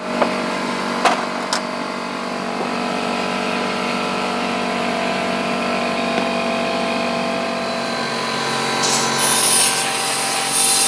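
A steady machine hum with a few sharp clicks in the first two seconds. About nine seconds in, a loud hiss of compressed air starts from an air-hose nozzle blowing out a Coleman lantern fount to dry it after an alcohol rinse.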